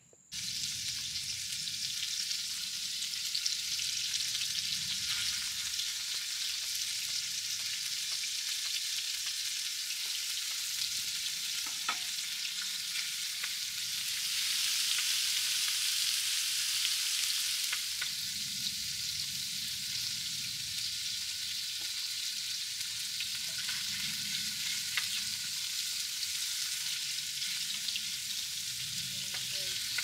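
Pork belly slices and tofu frying on a hot coated griddle over a gas stove: a steady, dense sizzle that starts suddenly and swells louder for a few seconds midway.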